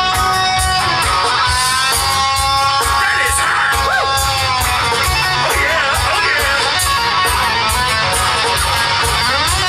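Live rock-and-roll band playing an instrumental break: a guitar lead of held notes with string bends over a steady drum beat and bass.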